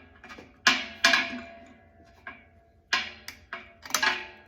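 Wrenches clinking against threaded metal pipe fittings while they are turned and tightened: about seven sharp metallic clinks, each with a brief ring.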